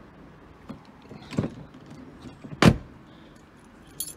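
Seat Ibiza's central locking unlocking: two sharp clunks from the door lock actuators, about a second and a half apart, the second louder.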